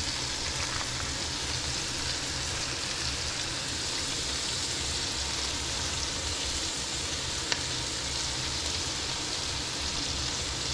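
Mutton snapper fillets sizzling steadily as they fry in hot butter in a cast iron skillet. A single sharp click about seven and a half seconds in.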